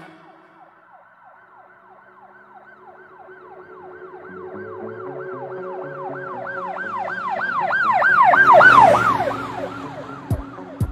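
A siren-like wail in the background music, sweeping up and down in pitch about four times a second over held notes and a stepping bass line. It swells to its loudest near the end, then fades.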